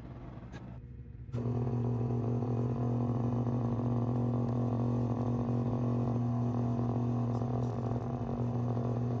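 An electric machine switches on about a second in and runs with a steady low hum.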